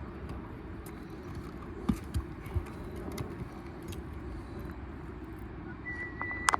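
Steady outdoor rumble with three dull thumps about two seconds in, and near the end a brief high beep followed by a sharp click.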